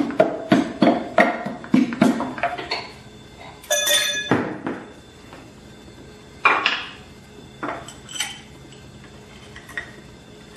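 Metal engine parts of a 5.9 Cummins common-rail diesel knocking and clinking during teardown while a piston and connecting rod are worked out of the block. A quick run of knocks about three a second fills the first three seconds, a ringing clang comes about four seconds in, then a few scattered clanks.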